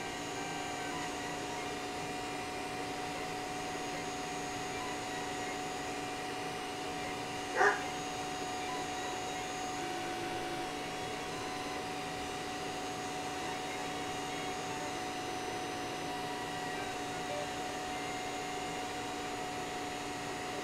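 A 3D-printer laser engraver with a 2.5 W laser module running: a steady whir from its cooling fan and motors, with several steady humming tones. A brief, sharp high-pitched squeak stands out once, about eight seconds in.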